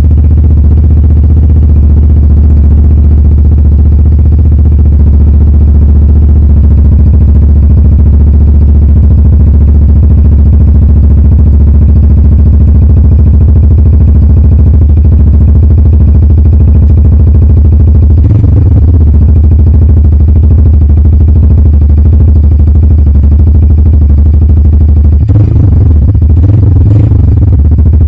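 Motorcycle engine idling steadily and loudly through a MUTT Motorcycles aftermarket silencer, with a low exhaust note. The note briefly changes twice, about two-thirds of the way in and near the end.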